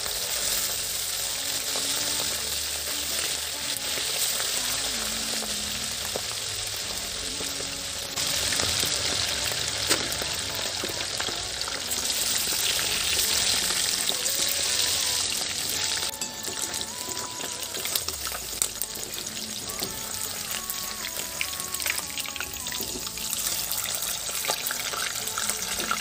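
Fish pieces sizzling as they deep-fry in hot oil in a kadhai, louder for a while in the middle, with a few clicks of the spatula and slotted spoon against the pan. Soft background music runs underneath.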